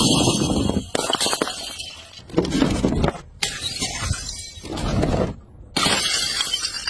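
Glass bottles smashing, about five separate crashes in a row, each starting suddenly.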